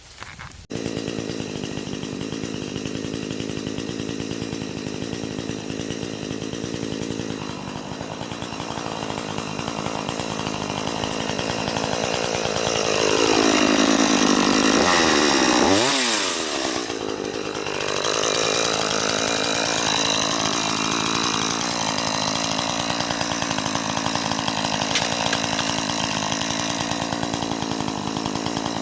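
Chainsaw running and cutting through fallen branches. It starts suddenly just under a second in, grows louder to its loudest stretch about halfway through, then its pitch falls and rises again and the loudness drops off suddenly before it carries on running.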